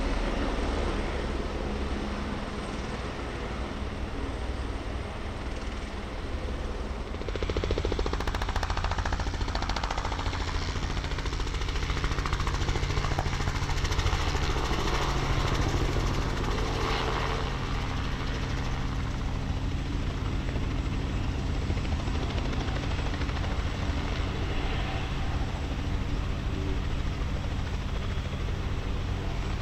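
Helicopters hovering low over the pad, rotor and engine running steadily. For the first few seconds it is an Airbus AS350 single-turbine helicopter. After a change about seven seconds in, it is a louder Robinson R44 with a piston engine, its rotor giving a steady chopping beat.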